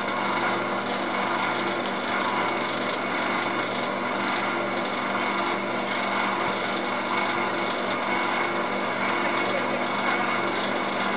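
A small engine or motor running steadily at an even speed, without change.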